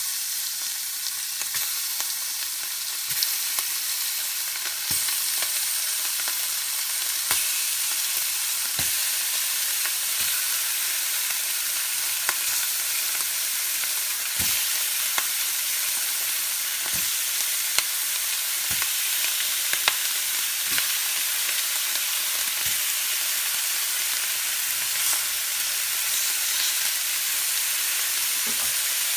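Bacon-wrapped venison steaks sizzling and frying in a hot skillet over medium-high heat. The steady sizzle is broken by a dozen or so light knocks as more steaks are set down in the pan one after another.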